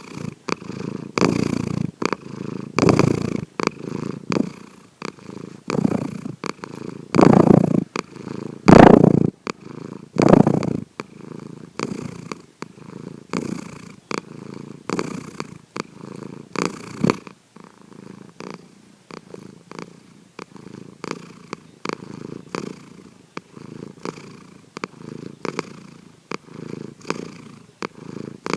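Domestic cat snoring in its sleep: a rasping sound with each breath, about one every one and a half seconds. The snores are louder in the first half and soften from about seventeen seconds in.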